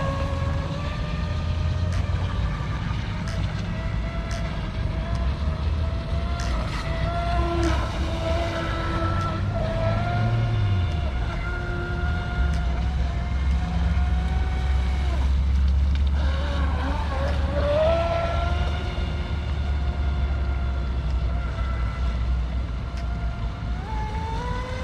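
F1-style RC speedboat's brushless electric motor whining as it runs on the water, its pitch rising and falling with the throttle, over a steady low rumble.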